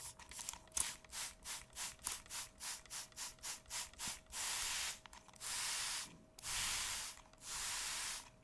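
Rubbing strokes close to the microphone, quick and short at about three a second, then slower long sweeping strokes of nearly a second each from about halfway, as in face-washing ASMR.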